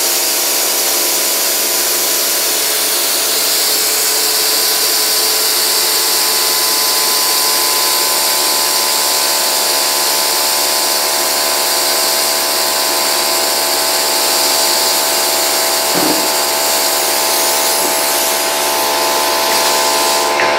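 Compressed air from an air-compressor nozzle hissing steadily as it blasts a fidget spinner up to speed, with a steady whine of several tones beneath the hiss. There is a single brief knock about sixteen seconds in.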